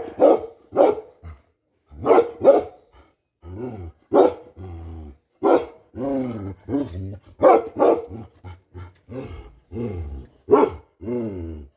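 Bakarwal dog barking, a run of deep barks at roughly one a second, with low growling between some of them.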